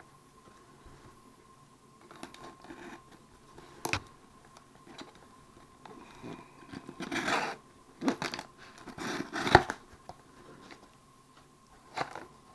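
A folding knife cutting open a cardboard shipping box, with scrapes, tearing and rustling as the flaps are pulled open; the loudest tearing comes in short bursts about seven to ten seconds in.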